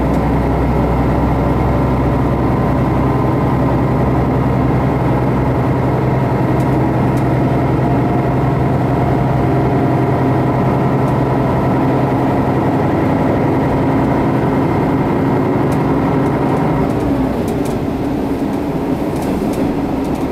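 Diesel railcar heard from inside the passenger cabin, its engine running under power with a steady drone and hum. About seventeen seconds in the engine note drops away, leaving the running noise of the train.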